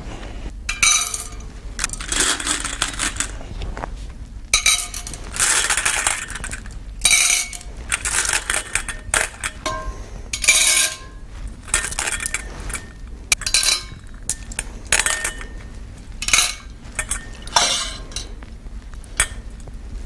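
Small metal pieces dropped one at a time into a floating steel bowl, each landing with a short clink and a brief metallic ring, more than a dozen times at irregular intervals of about a second. The bowl is being loaded until it sinks.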